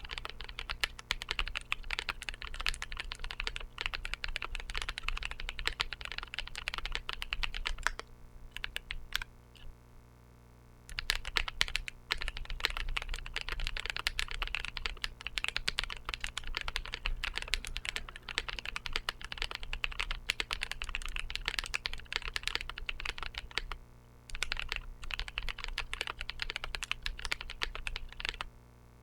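Typing on a custom mechanical keyboard with Drop Holy Panda tactile switches on 62 g SPRiT springs and GMK Godspeed keycaps: a dense run of key clacks. It breaks off for about three seconds some eight seconds in, and briefly again later.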